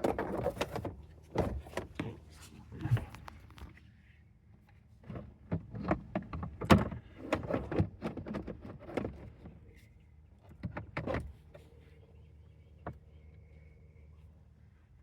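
Hard plastic dashboard trim pieces of a 2012 Honda Civic being handled and fitted: a run of clicks and knocks, busiest in two spells, thinning out after about eleven seconds.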